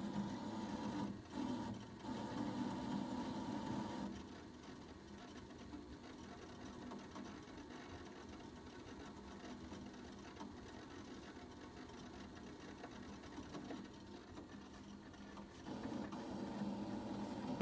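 MakerBot Replicator 5th Generation 3D printer's stepper motors whining, as in its start-up routine. They run for the first few seconds, drop to a quieter steady hum, and start up again near the end.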